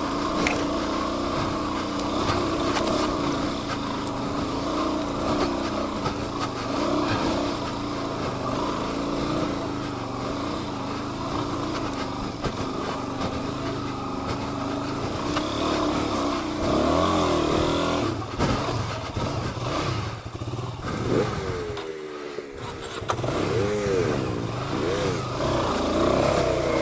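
Suzuki DR-Z400 single-cylinder four-stroke dirt bike engine running steadily at part throttle, then revving up and down repeatedly over the last ten seconds or so, with a short throttle-off lull in between.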